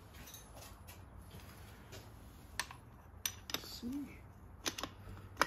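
Metal clinks of a socket wrench being handled and fitted onto a carburetor clamp bolt: a handful of sharp, irregular clicks in the second half, the last one the loudest.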